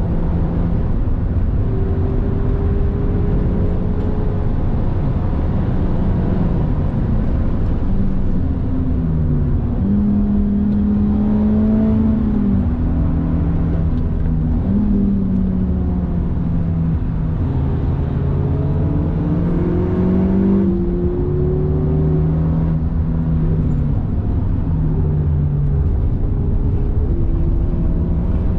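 Cabin sound of a Honda Civic Type R FK8 at speed. Its 2.0-litre turbocharged four-cylinder engine runs under load, its pitch climbing and then dropping in steps with gear changes, over a steady road and tyre rumble.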